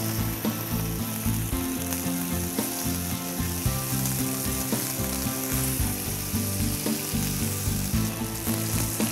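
Red snapper fillet sizzling steadily in hot olive oil in a non-stick frying pan, with a few light clicks of tongs against the pan as the fish is turned.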